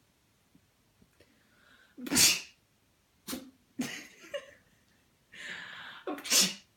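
Yorkshire terrier sneezing repeatedly: a loud sneeze about two seconds in, a couple of smaller snorting sneezes after it, then a hissy intake and another loud sneeze near the end. The owner takes the sneezing for a sign the dog has probably fallen ill.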